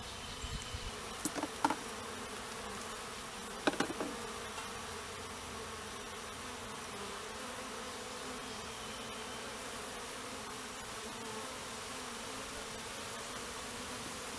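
A honeybee swarm buzzing steadily in an opened bait hive. A few sharp knocks come around one and a half seconds in and again about four seconds in.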